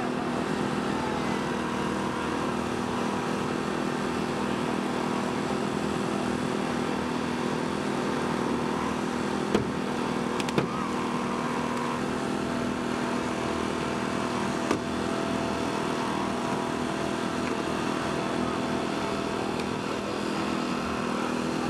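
Small gasoline engine of a hydraulic rescue-tool power unit running steadily, driving the spreader and cutter ("Jaws of Life") used to force a car door. A few sharp cracks stand out, about ten and fifteen seconds in.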